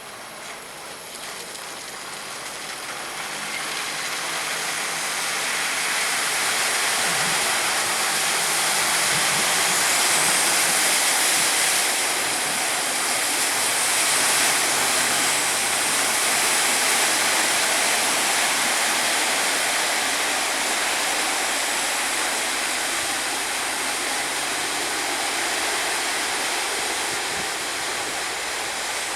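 Steady rushing noise of travel in a moving vehicle, swelling over the first few seconds and then holding level, with no rhythm to it.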